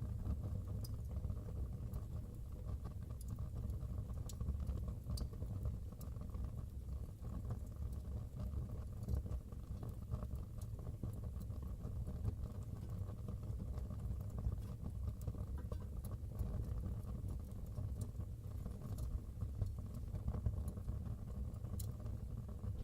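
Fire burning in a fireplace, crackling: scattered sharp pops at irregular moments over a steady low rush of the flames.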